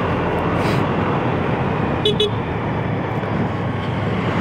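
Steady riding noise of a Honda Grazia 125 cc scooter on the road, with two quick horn toots about two seconds in.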